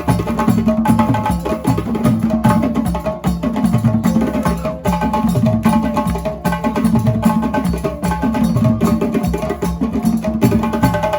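Percussion-led music: drums keep a dense, steady rhythm with sustained tones running above it.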